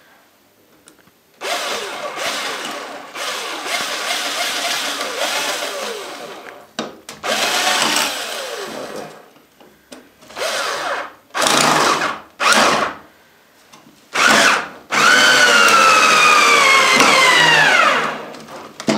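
Cordless drill/driver driving wood screws into the boards in a series of bursts of motor whine, the pitch sagging as each screw bites into the wood. The last and longest run, near the end, slows steadily as the screw seats.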